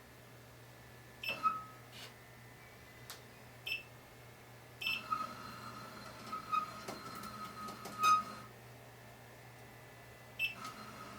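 Unlubricated lead screws of a Flying Bear Reborn 3D printer squeaking: short high squeaks about a second in, a longer run of squeaks from about five to eight seconds, and more near the end, the sign of dry screws. A few sharp clicks fall between them, over a steady low hum.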